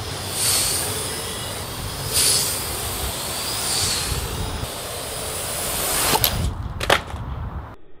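Parrot AR.Drone 2.0 quadcopter in flight, its rotors whining over a rushing hiss, the whine rising and falling in pitch as it manoeuvres. Two sharp knocks come near the end.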